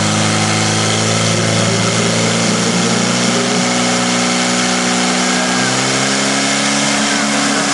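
Portable fire pump's engine running flat out at high, steady revs, driving water through the hoses to the nozzles; its pitch creeps up slightly about five seconds in.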